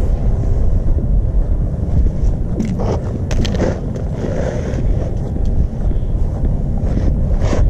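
Wind buffeting the microphone: a steady low rumble, with a few short knocks or scuffs about three seconds in and again near the end.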